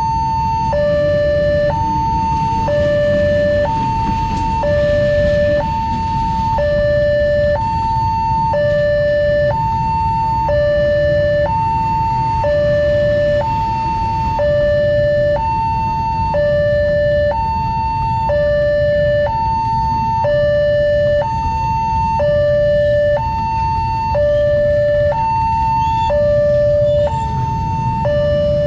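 Railway level-crossing warning alarm sounding two tones, a higher and a lower, alternating about once a second, over the low rumble of waiting motorcycles and a passing passenger train.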